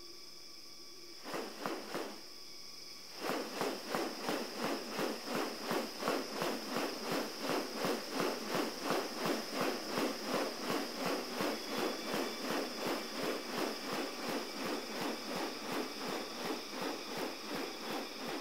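Male magnificent riflebird's stiff wing feathers swishing in a steady rhythm, about two to three swishes a second, as it swings its raised wings in its courtship display. A few single swishes come first, then a long even run that stops near the end. Over a steady high insect whine.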